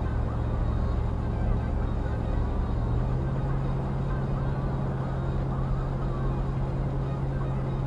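Steady engine drone and road noise of a vehicle cruising at about 50 mph, heard from inside the cab; the engine note steps up slightly about three seconds in.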